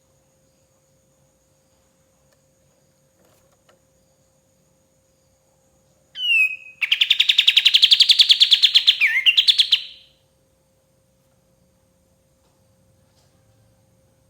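Kapas tembak songbird giving one burst of song about six seconds in: a few quick falling notes, then a fast rattling trill of about ten notes a second that lasts some three seconds.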